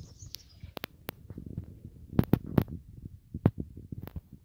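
Fighting bulls eating at a trough: irregular sharp clicks and knocks of feeding over a low rumble, louder about halfway through.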